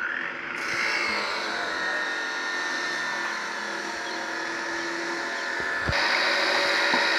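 A machine running steadily, a hiss with a few held whining tones; it jumps louder about six seconds in.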